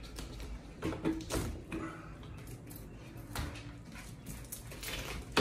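Upper window sash knocking and rubbing in its frame as it is worked free and pulled inward, with short squeaks about one and two to three seconds in and a sharp knock near the end.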